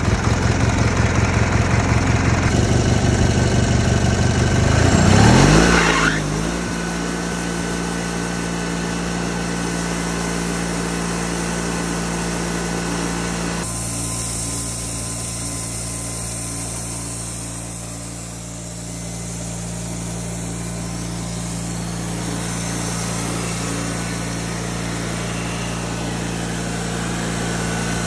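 Wood-Mizer band sawmill's engine running just after starting, with a pulsing beat. About five seconds in its pitch rises as it is throttled up, and it settles into a steady high-speed run. The running sound shifts again about halfway through.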